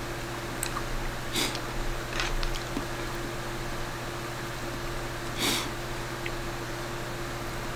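Chopsticks stirring and lifting hot instant noodles in a paper Cup Noodle cup, with faint clicks and two short breathy puffs, about a second and five and a half seconds in. A steady fan hum runs underneath.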